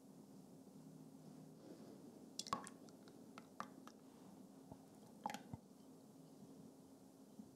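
Faint liquid stirring of raspberry jelly in a glass measuring jug with a silicone spatula, with raspberry sauce poured in partway. A few soft clicks and taps of the spatula and bowl against the glass come about two and a half seconds in, a few more around three to three and a half seconds, and a small cluster a little past five seconds.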